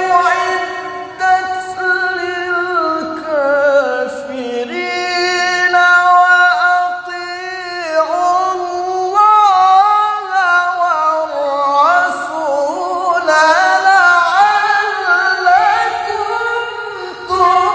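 A man reciting the Qur'an in the melodic tilawah style into a microphone. He sings one long, ornamented phrase of held, wavering notes that dips low about four seconds in and climbs higher in the second half.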